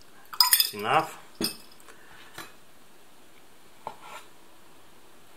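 A few sharp clicks and knocks of a chef's knife and olives being handled on a bamboo cutting board. The loudest come about half a second in, followed by a few fainter taps.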